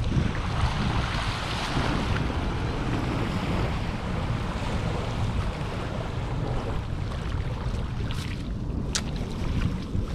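Wind buffeting the microphone over small waves washing onto a sandy shore, a steady rushing noise. Two short sharp clicks come near the end.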